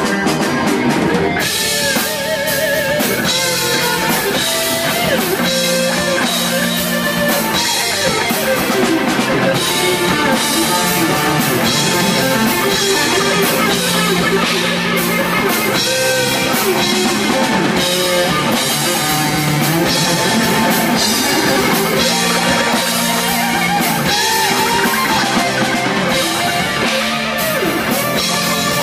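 Rock band playing live with no vocals: an electric guitar lead with wavering, gliding notes over bass, keyboard and drum kit.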